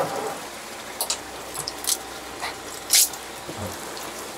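Short wet squelches and splashes from handling a large live octopus into a mesh net bag, the loudest about three seconds in, over a steady background hiss.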